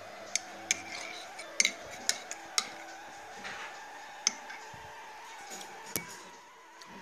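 A ceramic mug of cocoa being handled, clinking and knocking sharply about seven times, over a steady hum.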